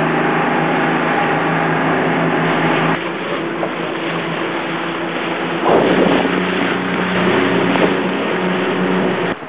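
Boat engine running steadily under way, with rushing wind and water noise; the sound changes abruptly about three seconds in.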